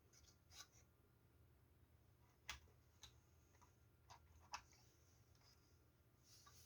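A few faint, sharp clicks and taps, about four spread through otherwise near silence, as a replacement power supply board is handled and set into a Samsung One Connect box.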